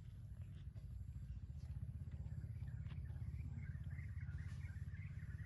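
Steady low rumble of a motor vehicle's engine running, with faint high chirps over it in the second half.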